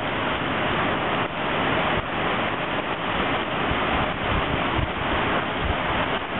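Heavy rain falling steadily as an even hiss, with gusts of wind rumbling on the microphone.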